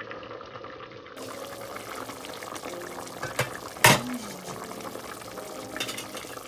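Pork sinigang soup bubbling at a full boil in a stainless steel pot, back on the boil after being covered. About four seconds in, a single sharp knock stands out as the loudest sound.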